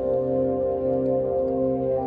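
Organ playing slow, sustained chords, changing chord about one and a half seconds in and again near the end.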